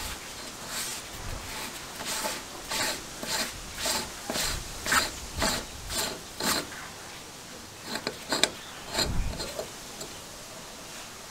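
Threaded top cap of a 1950s Aerite foot tyre pump's barrel being unscrewed by a gloved hand: a rasping scrape with each twist, about two a second, then a few last scrapes after a short pause.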